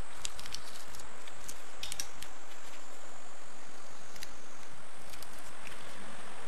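Scattered light clicks and taps of a welding electrode holder and its brass cable terminal being handled and fitted onto the cable, over a steady hiss.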